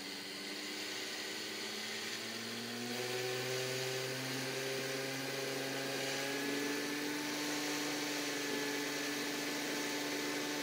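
Bedini window motor spinning, its magnet rotor and pulsed coil giving a steady whir with a hum of several tones. The hum rises slightly in pitch a few seconds in as the supply voltage is turned up toward 12 volts and the motor speeds up, then holds steady.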